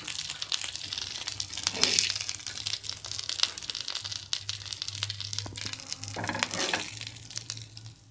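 Hot oil sizzling and crackling with quick pops in the pan where masala-coated Indian mackerel was shallow-fried, the flame just switched off; it thins out near the end.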